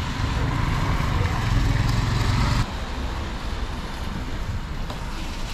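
Distant thunder rumbling low under a steady hiss, cutting off abruptly about two and a half seconds in and leaving only the quieter hiss.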